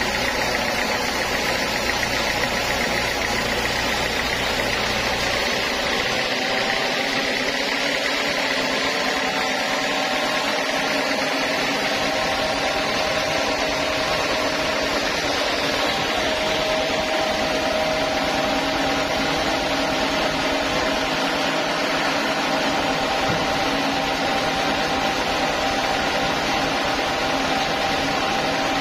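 Band sawmill running steadily, its band blade sawing through a teak slab, with a continuous machine drone and a low rumble that drops away about six seconds in.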